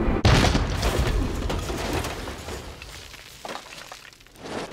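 A sudden loud crash about a quarter of a second in, followed by debris clattering and settling as it fades away over the next few seconds, with a couple of smaller knocks near the end.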